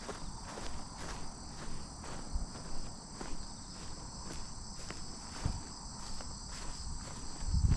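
Footsteps of a person walking at about two steps a second over a steady, high-pitched chorus of crickets. A couple of dull low thumps come through, the loudest one near the end.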